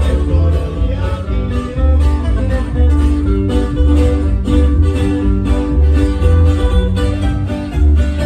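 Ranchero music with a heavy bass line and a steady beat.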